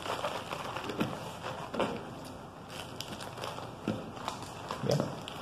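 Crisp lettuce leaves rustling and crinkling as they are rolled up tightly by hand on a wooden cutting board, with a few soft knocks of hands and leaves against the board.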